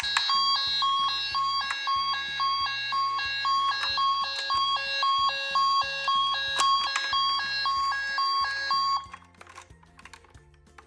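Electronic siren of a battery-powered toy emergency vehicle, a fast repeating beeping pattern at about three cycles a second that cuts off suddenly about nine seconds in. Background music with a low stepping bass line plays underneath, and a few light clicks follow the siren.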